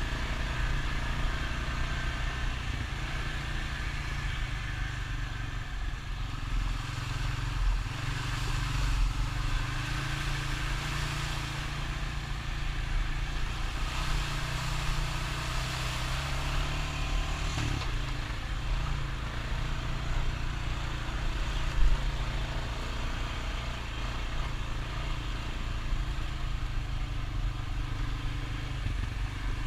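Honda Rancher ATV's single-cylinder engine running steadily, its pitch shifting a little as it rides. There is one sharp knock about 22 seconds in.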